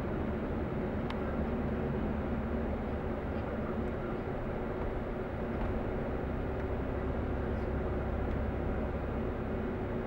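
Steady engine drone and road noise from inside a moving vehicle's cabin: an unchanging low hum with a few held tones, over an even rush of tyre noise.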